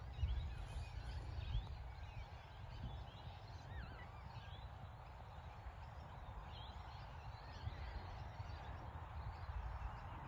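Many short bird calls and chirps, over a low rumble of wind on the microphone.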